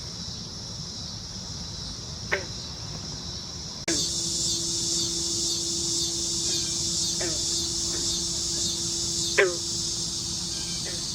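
Crickets chirring steadily in a dusk chorus that gets louder and fuller about four seconds in. A few short, sharp calls drop quickly in pitch, and a steady low hum runs from about four to nine seconds.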